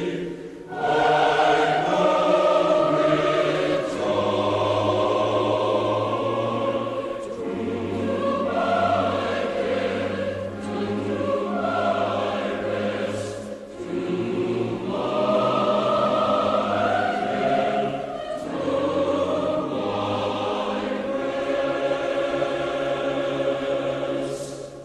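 Background choral music: a choir singing long held phrases with short breaks between them, fading out at the very end.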